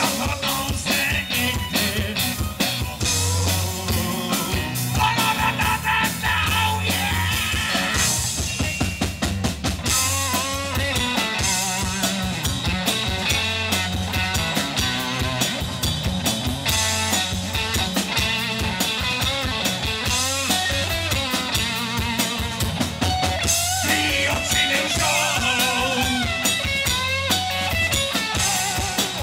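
Live rock band playing through a PA: drum kit keeping a steady beat under electric guitars and bass, with male vocals.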